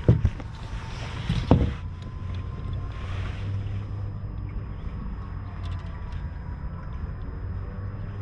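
Two sudden thumps about a second and a half apart as a smallmouth bass is let back into the lake over the side of the boat, then a steady low hum of wind and water against the hull.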